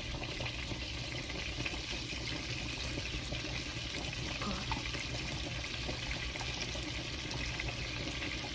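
Butter and minced garlic sizzling steadily in a hot frying pan.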